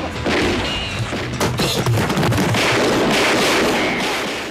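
Film soundtrack of a gunfight: dramatic music with several pistol shots cracking over it.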